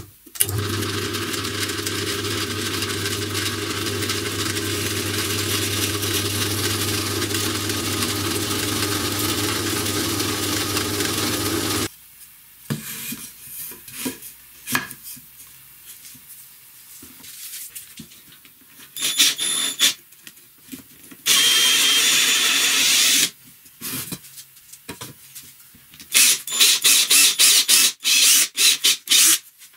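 A bench drill press runs steadily with a low motor hum for about twelve seconds, drilling a strip of wood clamped in its vise, then stops abruptly. Scattered knocks and clicks of wooden frame pieces being handled follow, with a brief two-second run of a power tool, and near the end a cordless drill running in rapid short bursts as it drills into the frame's corner.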